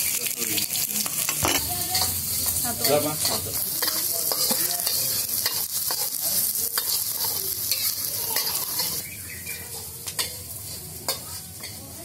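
Shallots and garlic sizzling in hot oil in a wok while a spatula stirs and scrapes them, with many clicks of the spatula against the pan. The sizzle dies down about nine seconds in.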